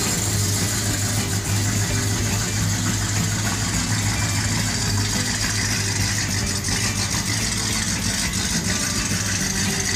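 1969 Dodge Charger R/T's V8 engine idling steadily, a low even hum with no revving.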